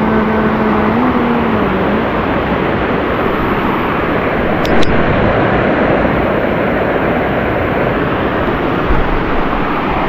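Waterfall cascading down a rock slab close to the microphone: a loud, steady rush of white water. There is a single short click about five seconds in.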